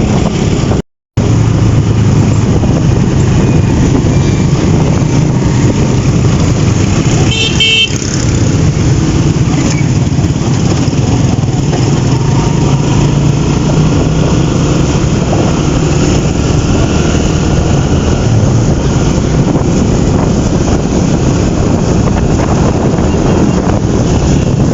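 Road traffic heard on the move: a vehicle engine runs steadily over street noise. A horn honks briefly about eight seconds in, and the sound drops out completely for a moment about a second in.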